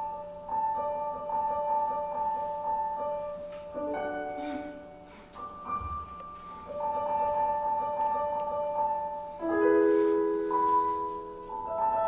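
Instrumental music: a repeating pattern of ringing pitched notes, changing chord about four seconds in and again near ten seconds, with a faint steady hum beneath.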